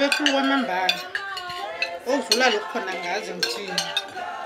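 Forks and spoons clinking and scraping on ceramic plates as several people eat, with many short sharp clicks, over a woman talking.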